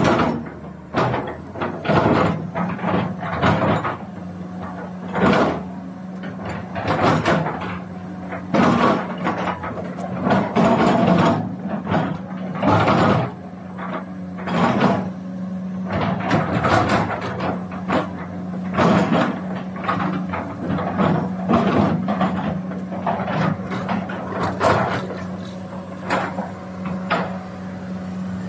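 Komatsu PC400 excavator's six-cylinder diesel engine running with a steady hum, under frequent irregular clanks and knocks as the boom, arm and bucket are worked.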